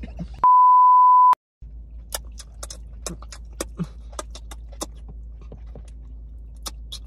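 Censor bleep: a loud, steady single tone lasting just under a second, cut off into a moment of dead silence. Then low car-interior hum with scattered small clicks and smacks of eating.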